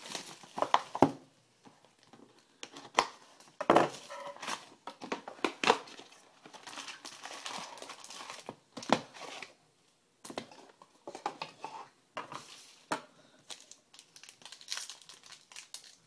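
Crinkling and tearing of plastic and foil packaging as a box of trading-card packs is opened, with irregular sharp crackles and clicks.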